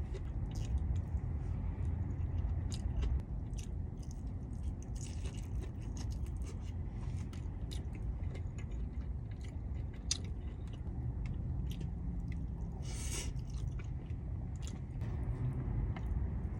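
A person chewing a mouthful of curry katsu don (breaded chicken cutlet, egg and rice), with scattered small clicks throughout and a short hiss about thirteen seconds in.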